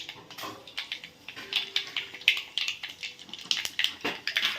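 Mustard seeds spluttering in hot oil: a rapid, irregular crackle of sharp little pops as the seeds burst.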